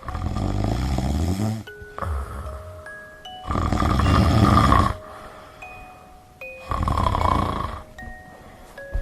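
Recorded human snoring played through a Bluetooth speaker sealed in a mason jar: four snores, the second one short and weaker. Bell-like music notes sound over it.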